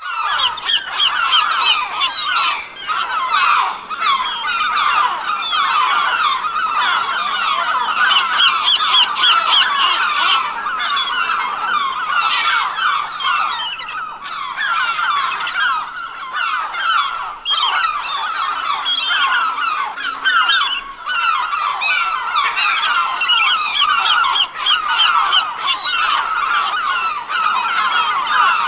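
A large flock of gulls calling all at once: many short squawks overlapping into a continuous din.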